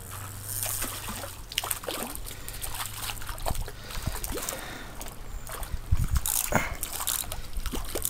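Shallow stream water splashing and trickling, with irregular knocks and splashes, the loudest about six to seven seconds in.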